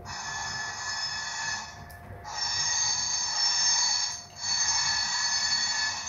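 Iowa Scaled Engineering Squealer sound module playing railway wheel flange squeal through its speaker, set off by an HO scale freight train passing its motion sensors on a curve. A high screech of several tones at once comes three times, with short breaks about two seconds and about four seconds in, the later two louder.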